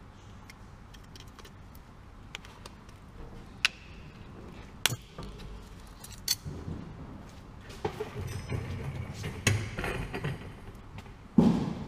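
Sharp metallic clinks of hand tools and metal parts, a few single ones at first, then a busier run of clattering and knocks, with a louder knock near the end.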